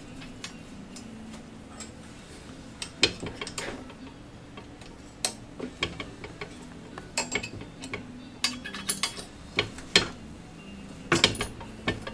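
Hand tools and a bolt fitting the saw's top roller back in place: irregular sharp metallic clicks and clinks, a few in quick clusters, over a faint steady low hum.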